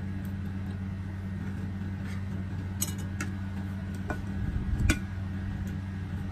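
Spoon and fork clicking against a plate a few times during eating, the sharpest click about five seconds in, over a steady low hum.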